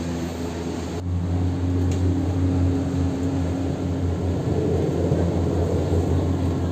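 Steady low mechanical hum with a faint held tone: gondola cableway station machinery, heard from inside a gondola cabin. The sound changes abruptly about a second in.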